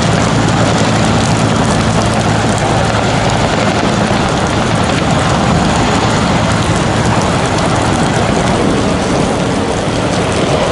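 Steady heavy rain with a low, steady engine drone underneath.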